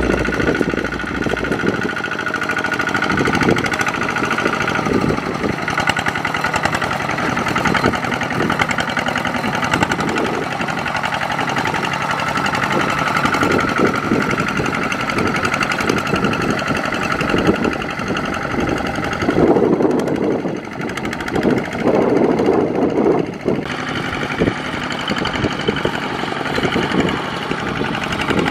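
Kubota RT140 power tiller's single-cylinder diesel engine running steadily with a fast, knocking beat as it hauls a loaded trailer through wet mud, growing louder for a few seconds about two-thirds of the way through.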